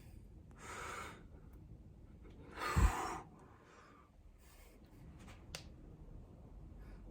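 A person's breath sounds: a few short, noisy breaths, the loudest about three seconds in.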